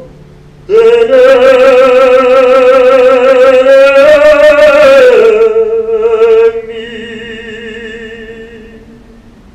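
A male tenor voice sings one long held note with wide vibrato, rising slightly in pitch near the end. About five seconds in it drops sharply in loudness and carries on more softly, fading out.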